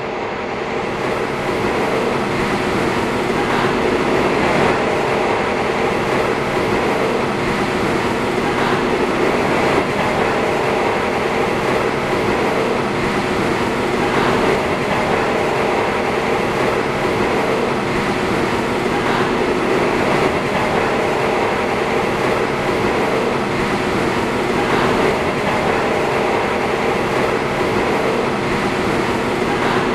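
Passenger train carriage running: a steady rumble and hum from the moving train, with occasional faint clacks from the wheels on the rails. The sound fades in over the first second or so.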